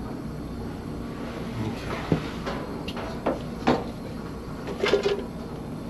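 A few sharp clicks and knocks of hand work on a compressor, with the loudest about two seconds in and again near the middle, over a steady low hum.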